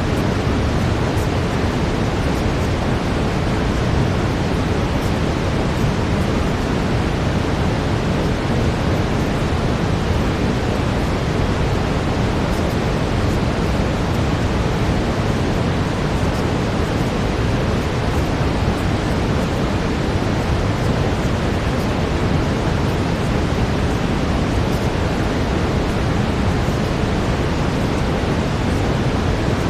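Steady brown noise: an even, unchanging rushing hiss weighted toward the low end, like distant surf.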